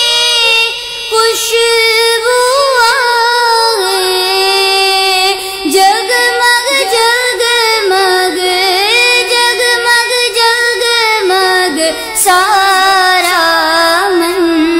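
A young woman's solo voice singing a naat, holding long ornamented notes with wavering, gliding pitch.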